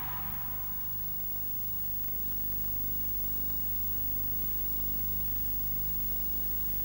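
Steady low electrical hum with hiss, a gap in the soundtrack between pieces of music.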